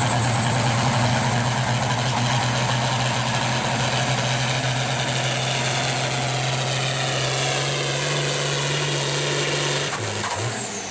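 International turbo diesel farm tractor at full throttle pulling a weight-transfer sled, its engine note steady under load with a high turbo whistle slowly climbing. About ten seconds in the throttle is cut: the engine drops off and the whistle winds down.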